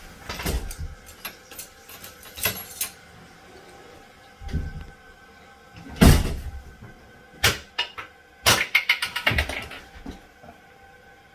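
A series of hard knocks and clunks, the loudest about six seconds in, with a quick run of clattering knocks near the end.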